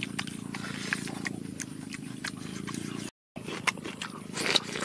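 Close-up chewing and wet lip-smacking of someone eating pork skin with green chilli: many short clicks over a steady low hum. The sound cuts out for a moment about three seconds in, and the smacking is loudest near the end.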